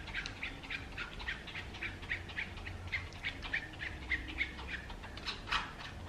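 A metal spoon scraping and rubbing thick avocado-and-banana puree through a plastic mesh sieve: a quick run of short scrapes, about four a second, with one louder stroke about five and a half seconds in.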